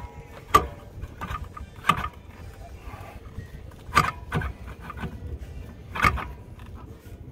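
A handful of sharp, separate metallic clicks and knocks as a new Ford Performance shock absorber is compressed by hand and worked into its mount.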